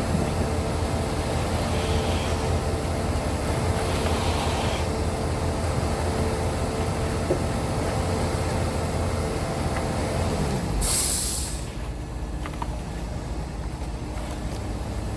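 A heavy engine runs steadily, then drops in pitch and winds down about ten seconds in. A short, loud hiss follows, and a lower engine sound keeps running afterwards.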